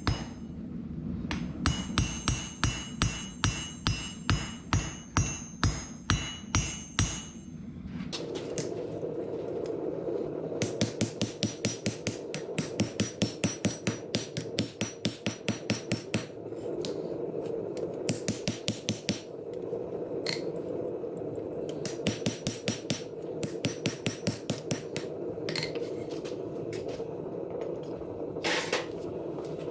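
Hand hammer striking hot 5160 leaf-spring steel on an anvil in runs of evenly spaced blows, about two to three a second, with a metallic ring. From about eight seconds in a steady rushing noise runs under the blows.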